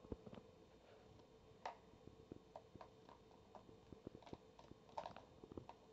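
Faint, irregular small clicks, taps and splashes as a small dog noses and mouths plastic toy fish in a bowl of water.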